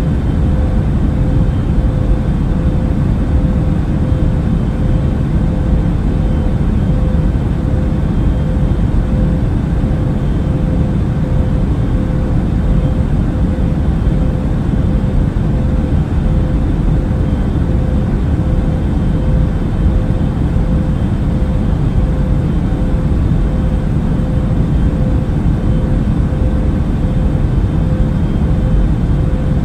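Airliner cabin noise in flight: a steady, deep rush of engine and airflow noise with a faint even hum riding on it.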